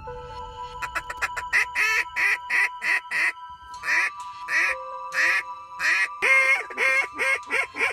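Mouth-blown duck call sounding two runs of rapid quacks, about three a second, with background music holding a steady tone underneath.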